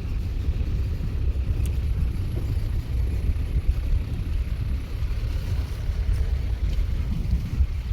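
Open Maruti Gypsy safari jeep driving along a dirt forest track: a steady low rumble of engine and wheels, uneven in loudness as it bumps along.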